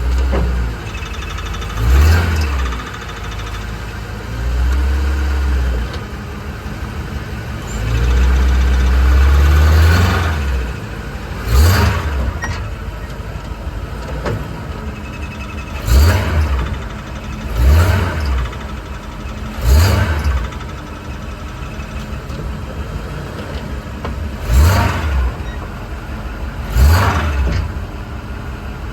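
Ford truck engine idling and revved in short blips about nine times, each rev rising and falling back to idle. The truck has an unexplained odd noise.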